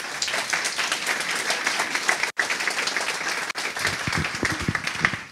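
Audience applauding, dense steady clapping that dies down at the very end.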